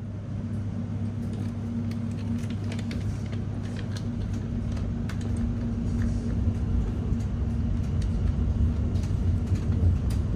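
Inside a Class 701 electric multiple unit train: a steady low rumble with a constant electrical hum, and a few faint clicks and rattles, growing slightly louder.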